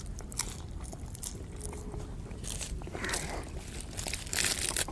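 A person chewing and crunching a crispy fried snack. Near the end there are short crackling, tearing sounds as a fried kachori or bread is pulled apart by hand.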